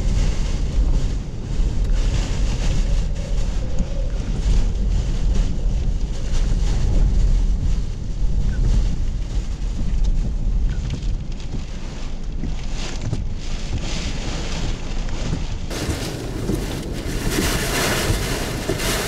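Hurricane-force wind and rain buffeting a car, heard from inside the cabin as a heavy, gusting rumble. About three seconds before the end it cuts to a brighter hiss of wind and rain.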